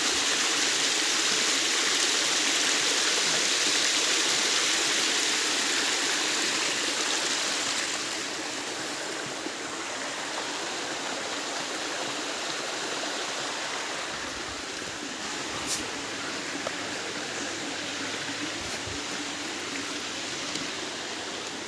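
Flowing water rushing steadily, louder for the first eight seconds or so, then settling to a softer, even rush.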